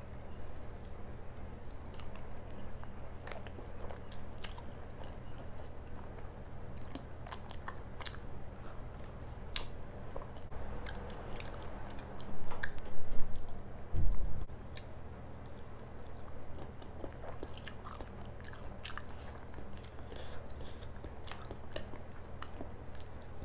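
Close-miked chewing of paratha with curry, full of wet mouth clicks and smacks. About twelve seconds in comes a short run of much louder low thumps while a hand works the food on the plate.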